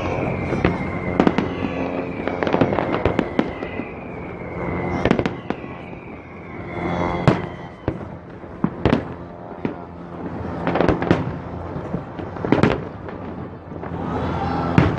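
Aerial fireworks bursting: a rapid, irregular series of sharp bangs, with several slowly falling whistles in the first half.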